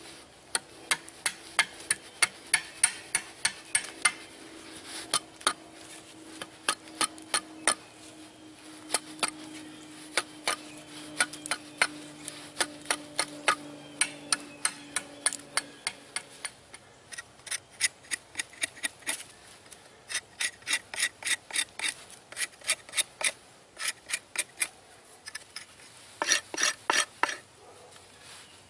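A large fixed-blade knife scraping the bark off a green sapling pole, in quick repeated shaving strokes that come in runs with short pauses between them.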